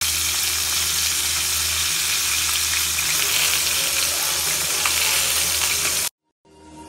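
Whole chicken frying in a pan, a steady sizzle with a low hum beneath it, cutting off suddenly about six seconds in.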